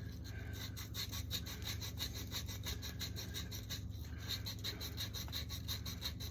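Abrasive scrubbing of the end of a 1/2-inch type M copper pipe, cleaning it bright before soldering: quick, even back-and-forth rubbing strokes.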